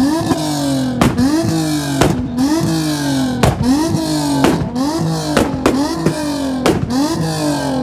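Car engine held on a two-step launch-control rev limiter: the revs rise and fall over and over, and a sharp exhaust bang comes about once a second. Recorded loud and close on a phone microphone.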